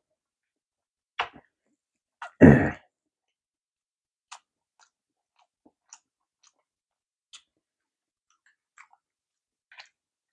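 A man's mouth and throat sounds between bites: a short, forceful throat sound, like a cough or throat-clearing, about two and a half seconds in, with a smaller one about a second earlier. After it come only scattered soft clicks from the mouth and chopsticks.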